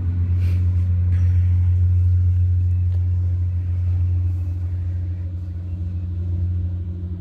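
Steady low machinery hum, one deep droning tone with fainter overtones, with a few faint knocks or footsteps about half a second and a second in.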